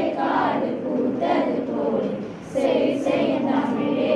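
A chorus of schoolgirls singing a song together, in sustained phrases.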